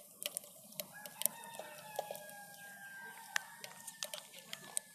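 Mustard and cumin seeds with ground spices crackling and popping in hot cooking oil in a pot, scattered sharp pops over a faint sizzle. Chickens call in the background, with one drawn-out call from about a second in until near the end.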